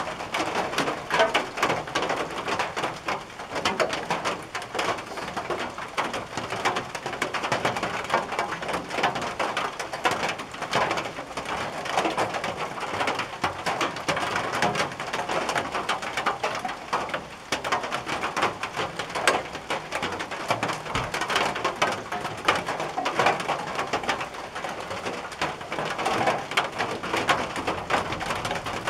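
Rain falling on a tin roof: a dense, steady, irregular patter of drops striking the metal.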